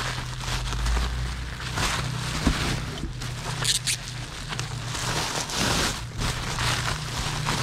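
Packing material rustling and crinkling in irregular bursts as items are unwrapped from a box, over a steady low hum.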